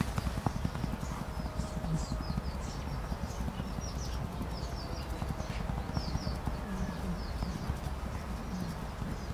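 Quick rhythmic pats of a hand on a tabby cat's back and rump, low soft thuds. Small birds chirp repeatedly in the background.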